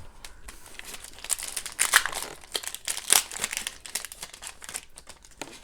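Foil trading-card pack wrapper crinkling and tearing as it is opened by hand, in a dense run of irregular crackles that is busiest in the middle.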